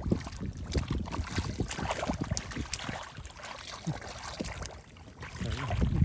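Irregular splashing and sloshing of shallow water, many short strokes over a low rumble.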